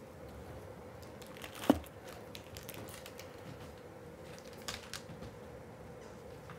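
Quiet indoor room tone with a faint steady hum, broken by one sharp knock a little under two seconds in and a few light clicks and rustles later.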